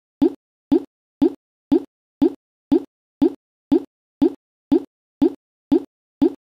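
A short, hollow pop repeating at an exact, even pace of two a second, with dead silence between: a looped pop sound effect.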